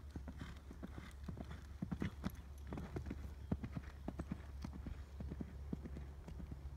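A horse's hoofbeats on the sand footing of a riding arena as it canters, a quick run of soft thuds that grows loudest as the horse passes about two to four seconds in and then fades. A steady low rumble runs underneath.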